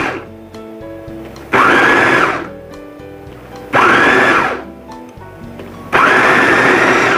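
Mitochiba CH 200 electric food chopper pulsed in bursts of about a second, spinning its blades through shallots and garlic for a coarse, dry chop. The tail of one pulse comes first, then three more pulses about two seconds apart, each starting sharply with a motor whine that rises briefly then holds.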